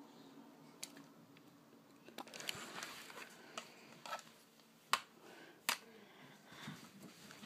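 Handling noise: faint rustling with scattered sharp clicks, the two loudest about five seconds in and again less than a second later.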